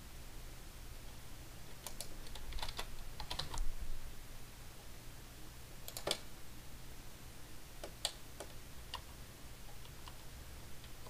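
Computer keyboard and mouse clicks: scattered single taps and short quick clusters, busiest about two to four seconds in, over a faint steady low hum.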